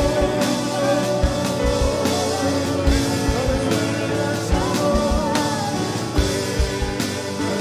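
Live worship band music: voices singing a melody into microphones, over electric guitar and a steady low drum beat.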